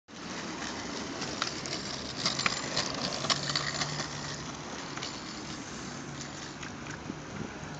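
Wheels of a small homemade wooden go-kart rolling over a concrete sidewalk: a steady rumble, with several sharp clicks in the first half as the wheels run over the joints between the slabs.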